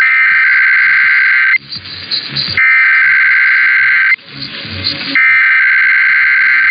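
Emergency Alert System SAME header data bursts received over AM radio: three harsh two-tone digital warbles, each about a second and a half long with about a second's pause between them, opening a weekly EAS test.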